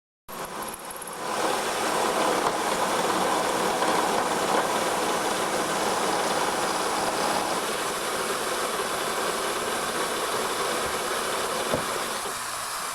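Milling machine cutting a slot in a steel clamp: steady metal-cutting noise that comes in abruptly, builds over about a second, then holds and eases slightly near the end.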